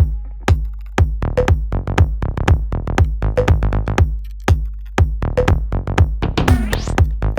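Electronic dance-pop music with a steady drum-machine beat, about two beats a second over a low bass line, in an instrumental stretch between sung lines; a rising sweep comes in near the end.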